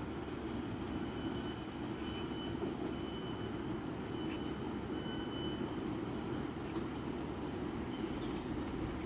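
Class 150 diesel multiple unit standing at the platform with its underfloor diesel engines idling, a steady low rumble mixed with wind buffeting the microphone.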